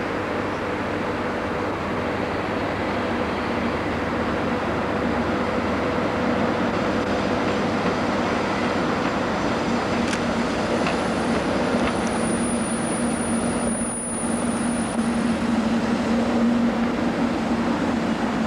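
British Rail Class 58 diesel-electric locomotive hauling a coal train, its engine running steadily and the train noise growing slightly louder as it passes. A thin high whine sounds for a few seconds past the middle.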